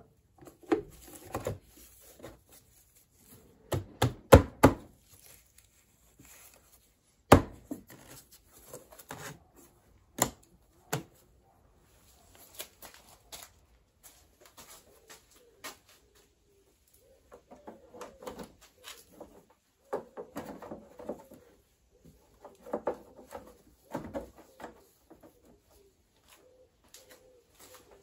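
Hard plastic and metal knocks and clicks from parts being handled while the air filter is changed on a BMW R1200GS airbox, a few sharp strikes in the first half. Later come softer clusters of repeated sound.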